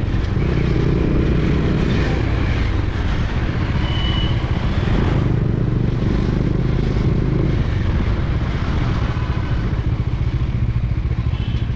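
Motorcycle ride recorded from the bike: the engine running steadily at low speed under wind and road noise. A brief high-pitched beep sounds about four seconds in.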